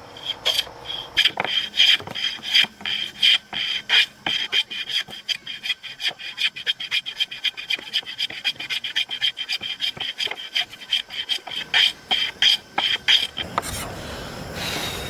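A hand tool scraping across wood in fast, rhythmic strokes, about five a second. About 13 seconds in the strokes stop and a steady rushing noise takes over.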